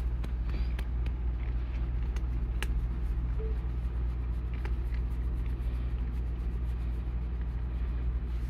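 Domestic cat purring steadily close up as she is patted, with scattered sharp clicks of her crunching her food.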